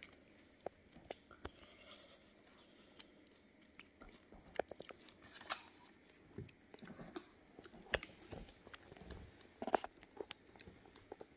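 A plastic spoon stirring seasoned chickpeas and chopped vegetables in a plastic bowl: scattered soft clicks, scrapes and wet crackles.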